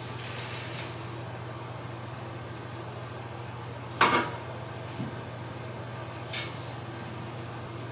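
A shower caddy shelf knocking against a tiled shower wall as it is held up and positioned: one sharp knock about four seconds in, then two lighter clicks, over a steady low hum.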